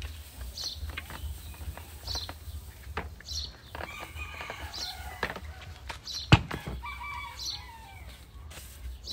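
Dry burnt rice husks and coconut coir poured from a plastic bucket into a plastic basin and worked by hand, a dry rustle, with one sharp knock about six seconds in. Short high bird calls repeat every second or so behind it.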